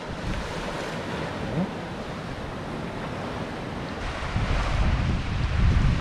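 Sea surf washing steadily on the shore, with wind buffeting the microphone as a low rumble that grows louder about four seconds in.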